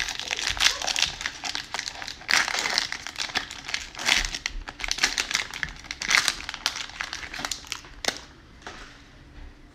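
Plastic trading-card pack wrapper being torn open and crinkled by hand, a dense crackling that dies down about eight seconds in.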